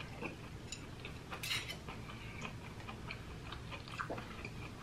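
Faint, scattered clicks and taps of chopsticks and a metal fork against food and serving dishes while eating.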